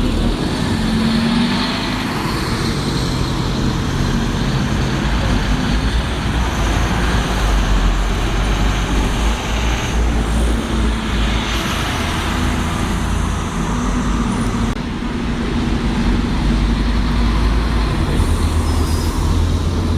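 Road traffic: the engines of passing motor vehicles running, with a steady low engine hum whose pitch shifts as vehicles come and go.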